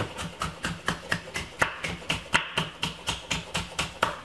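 Rapid, even tapping, about five sharp taps a second.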